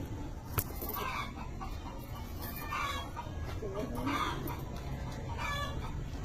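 Chickens clucking repeatedly, a call every second or so, over a steady low background rumble, with one sharp click about half a second in.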